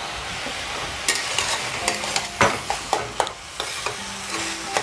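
Metal spatula scraping and tapping against a steel kadai while a boiled banana flower and potato mixture is stirred and fried, over a steady sizzle. The scrapes start about a second in and repeat every fraction of a second.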